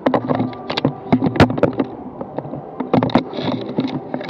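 Airsoft guns firing: a rapid, irregular run of sharp cracks and clicks through the first second and a half, then another short volley about three seconds in.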